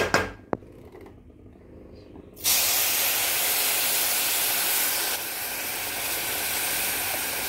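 A few clinks of a spatula against the pan, then about two and a half seconds in water is poured into a hot pan of ghee-roasted semolina and sugar and sets off a loud, steady hiss as it hits.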